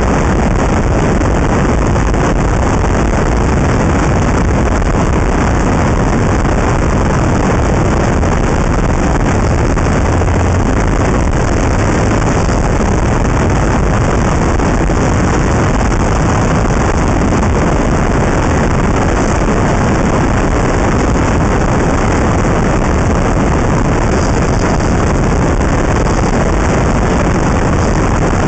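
Loud, steady wind noise on the microphone of an action camera clamped to the outside of a moving Honda Integra Type R, mixed with tyre and road noise, with no engine note standing out.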